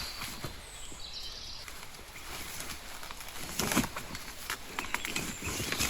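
Outdoor rural ambience: a few faint high bird chirps in the first second, and scattered short rustles and knocks, the loudest about three and a half seconds in.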